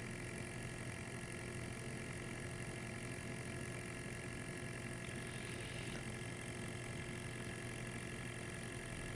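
Small sampling pump inside a Riken FI-21 gas analyzer running with a steady hum as it draws gas from an anesthesia vaporizer's output.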